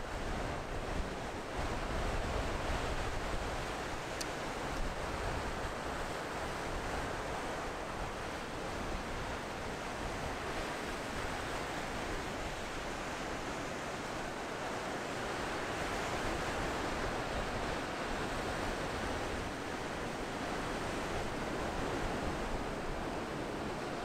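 Ocean surf breaking and washing onto a beach: a continuous rushing hiss that swells gently now and then.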